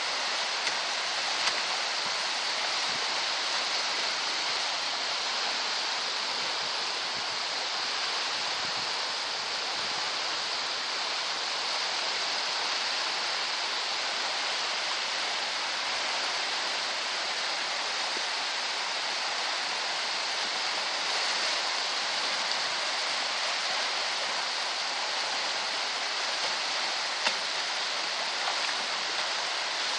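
Steady rushing water, an even hiss that does not change, with two faint knocks, one near the start and one near the end.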